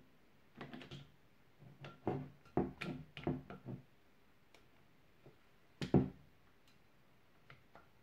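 Plastic clicking, knocking and rattling as a dust-extraction adapter is worked onto the head of a cordless multi-tool, with a loud knock about six seconds in.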